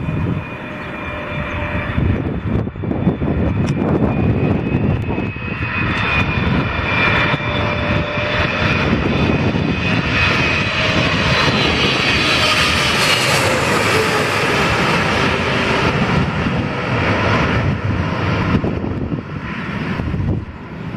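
Boeing 777-300ER's twin GE90 turbofans on final approach, passing low overhead: a steady engine whine over a broad rumble. The whine drops in pitch around the middle as the airliner goes by, and the sound eases off a little near the end.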